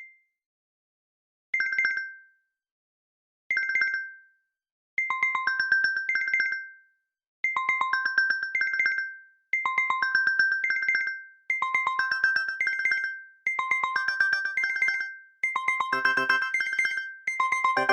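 Default smartphone alarm tone: a short electronic phrase of two to four rapidly pulsing notes, repeating about every two seconds and growing busier, with deeper notes joining near the end.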